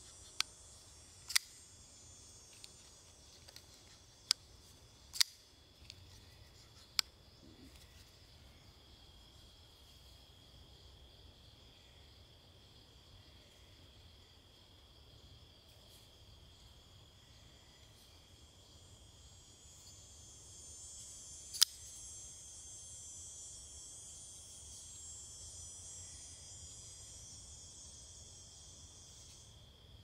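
Petrified Fish PF-949 folding knife's blade snapping open and shut in sharp clicks, several in the first seven seconds and one loud snap about two thirds of the way through, over a steady high insect buzz.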